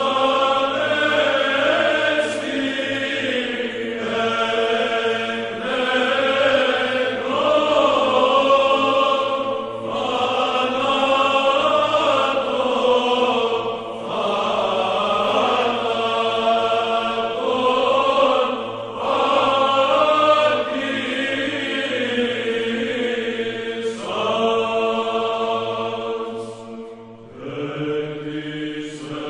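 Byzantine chant: voices singing a slow, wavering melody over a steady held low note, in long phrases with short breaks. A new phrase starts lower near the end.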